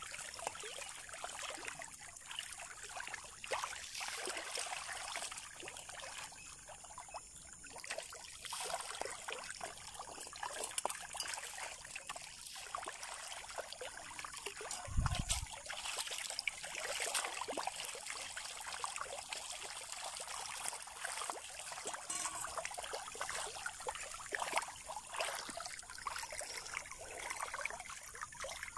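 Shallow river water splashing and sloshing as a crowd of fish thrash at the surface, a steady run of many small splashes. A brief low thump about halfway through.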